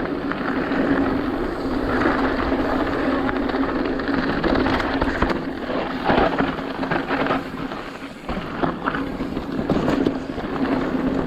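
Mountain bike riding down a dirt trail: wind rushing over the microphone, tyres on dirt, and frequent knocks and rattles from the bike over rough ground, with a steady buzz underneath.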